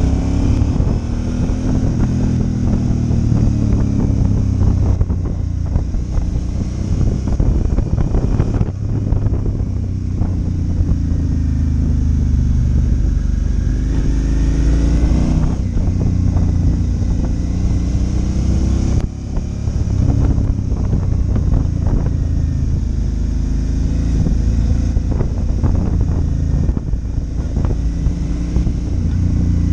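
Suzuki V-Strom 650's V-twin engine running under way. Its note rises and falls as the throttle opens and closes through the bends, with short dips a few times, over a steady rush of wind and road noise.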